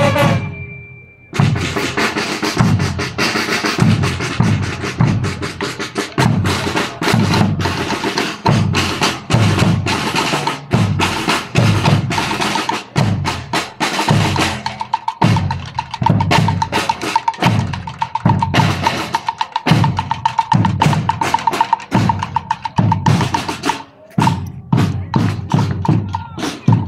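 School marching band's drum section playing: bass drums beating a steady pulse under rapid snare-drum strokes and rolls, coming in about a second in after a brief pause. From about halfway a steady high note sounds over the drums.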